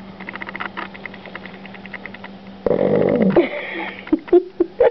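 A sleeping puppy snoring loudly. A long snore starts suddenly a little past halfway through, followed by several short, sharp snorts near the end.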